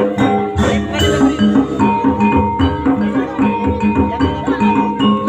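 Jaranan accompaniment music: drums and tuned gamelan-style percussion playing a fast, steady beat, with one long held high note through the middle.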